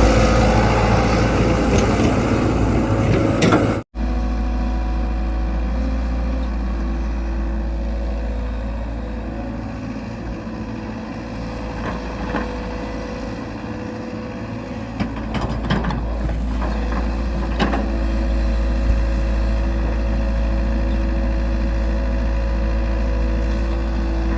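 Engine running steadily, with a few short mechanical knocks. The sound drops out for an instant about four seconds in.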